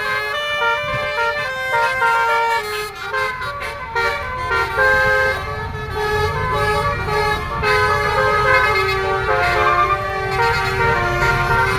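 Bus telolet horn, a multi-tone air horn, playing a tune of held notes that step from pitch to pitch. A low rumble joins from about six seconds in.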